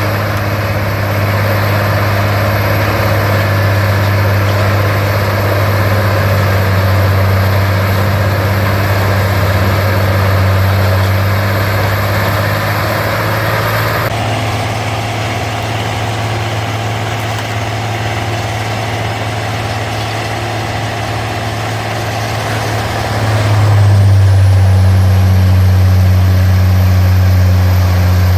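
Large diesel engine of a horizontal wood grinder running with a steady deep drone. The sound changes abruptly about halfway through. Near the end it gets louder, with a high whine rising as the engine comes up in speed.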